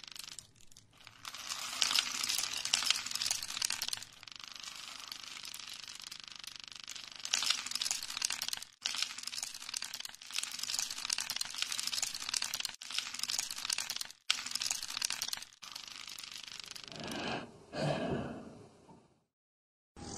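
Crackling, crinkling noise in irregular bursts, broken by short gaps, with two swelling sweeps near the end before it falls silent.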